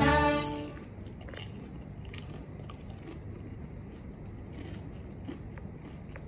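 Music fading out in the first second, then close-up chewing of a crisp fried tempeh fritter: scattered soft crunches and mouth clicks.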